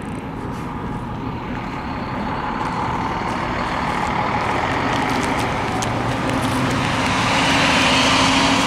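Heavy road vehicle, likely a city bus, approaching and passing: engine and tyre noise grows steadily louder, is loudest near the end, then falls away.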